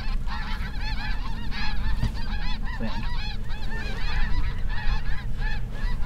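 A large flock of snow geese calling overhead: a dense, continuous chorus of short, high, overlapping honks, many each second, over a steady low rumble.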